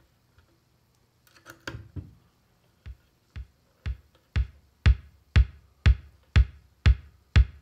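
Erica Synths Pico Drums kick drum playing a steady four-on-the-floor pattern from the Eloquencer sequencer, about two beats a second. It comes in about three seconds in and gets louder over the first few beats, after a few faint clicks of a patch cable being plugged in.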